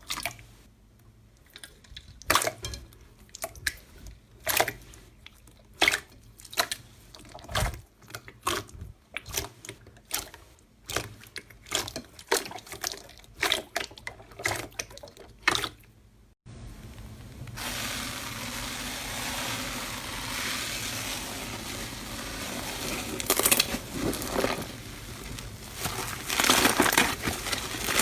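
Hand squeezing and pressing into slime: a run of short wet squelches and pops, about one or two a second. About halfway through, these give way abruptly to a steady hiss with bursts of crackling.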